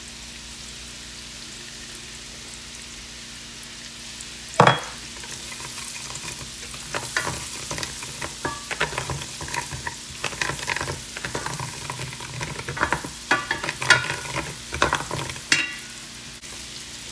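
Minced garlic and red bell pepper sizzling in melted margarine in a pot. A single sharp knock comes about four and a half seconds in, then from about six seconds on a wooden spoon stirs and scrapes against the pot in irregular clicks over the sizzle.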